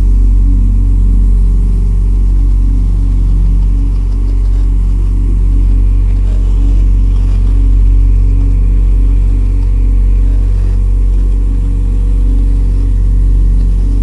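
Electronic ambient music: a steady deep bass drone under low synth tones that shift every second or so.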